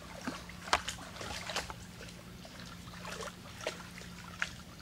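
Small waves lapping and splashing at the lake shoreline in irregular little slaps, over a steady low hum.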